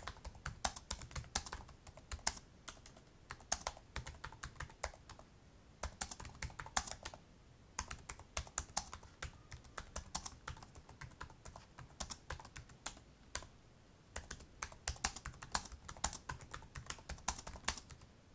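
Typing on a computer keyboard: quick runs of key clicks broken by brief pauses.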